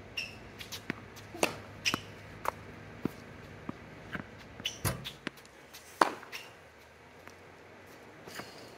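Tennis balls being hit with a racket and bouncing on a hard court: an irregular string of sharp pops, the loudest about six seconds in. A few short high squeaks of tennis shoes on the court come between the hits.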